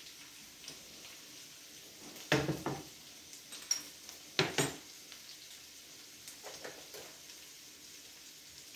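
Diced home-fry potatoes sizzling faintly in a stainless skillet, with two loud clusters of metal clanks about two and a half and four and a half seconds in as cookware is set down on the stovetop, and a few light clicks later on.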